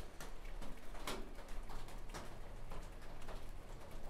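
Light, irregular clicks and taps, about two a second, from handling the epoxy-coated oil pickup and applicator, over a steady low hum.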